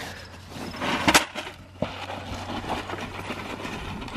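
Two pigs crunching and chomping pelleted feed from a plastic feed tub, an irregular crackle of chewing, with a louder clatter about a second in.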